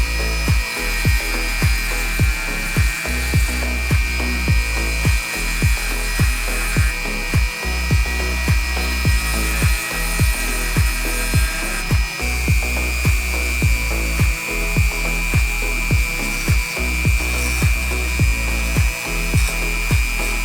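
Mini rotary tool (TACKLIFE rotary tool) running with a steady high whine, likely grinding brass bar stock; its pitch shifts slightly about halfway through. Background music with a steady beat plays throughout.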